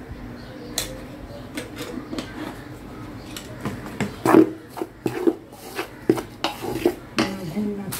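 Plastic spatula scraping and knocking against a stainless steel bowl as it stirs a dry, crumbly mix of roasted wheat flour and ghee. The strokes are irregular and grow busier and louder from about halfway.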